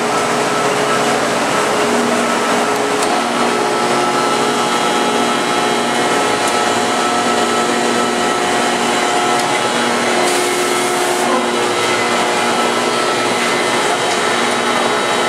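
Steady industrial machinery noise from the injection-molding plant's presses and equipment: an even hiss with several steady humming tones running through it. A brief, brighter hiss joins about ten seconds in.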